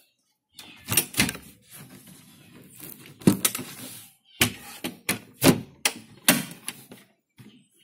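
A run of about ten irregular knocks and thuds on the carpeted marine-plywood deck and hatches of a small homemade boat, with a light rustle of handling between them.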